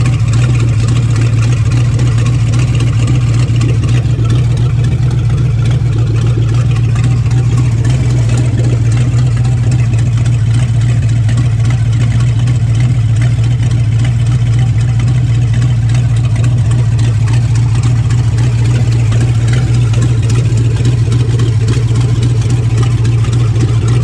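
Chrysler 400 big-block V8 of a 1969 Plymouth Fury idling steadily and loud, just started for the first time this year after an oil pan replacement.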